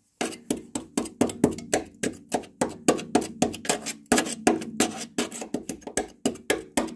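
A screwdriver tip jabbing again and again at the rusted sheet metal of a Volvo 850's wheel arch above the coil spring: sharp metal taps, about four a second, with the panel ringing faintly between them.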